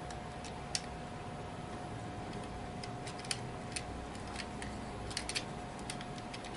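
Scattered light clicks and ticks as an HO scale model steam locomotive and tender are handled and seated on the track, the wheels and coupler clicking into place, with a quick run of three clicks near the end. A faint steady hum sits underneath.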